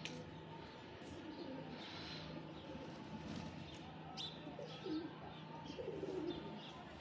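Domestic pigeons cooing in low, bending calls, loudest about five and six seconds in, with short high chirps of small birds over them.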